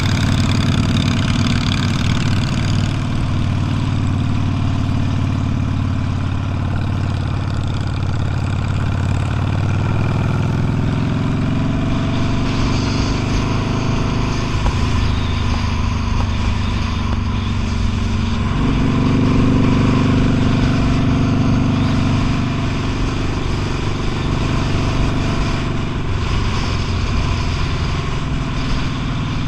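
V-twin motorcycle engine running steadily under way, its note stepping down about fourteen seconds in and back up a few seconds later as the throttle or gear changes.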